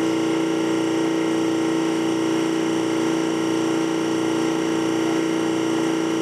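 Vacuum pump running steadily with a constant hum, pulling the vacuum chamber down toward about 29 inches of vacuum.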